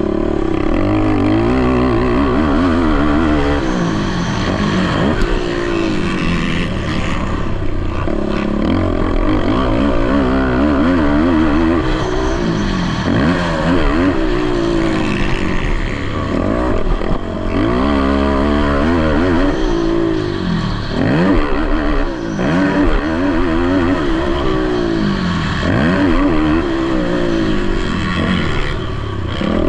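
Several racing quad (ATV) engines revving up and down, overlapping one another as the quads race, with the pitch climbing and dropping every second or two.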